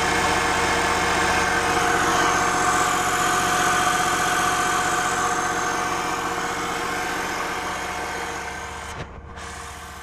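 Inboard marine engine of a 1987 Sea Ray 340 Sundancer idling steadily, heard with the engine hatch open; the sound fades down over the last few seconds.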